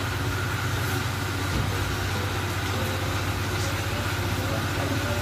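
A motor running steadily, giving an even low hum.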